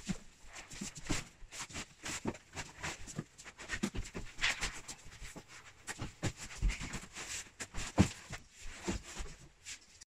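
Handling of bulky packaging: foam wrap and polystyrene end caps rustling and creaking, with scattered knocks against the cardboard box as a large monitor is lifted out. The loudest knock comes about eight seconds in.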